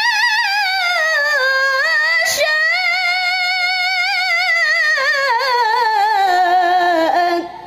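A young woman's unaccompanied Quran recitation (tilawah) through a microphone: one long, ornamented phrase with strong vibrato, starting high and sinking slowly in pitch, breaking off for a breath near the end.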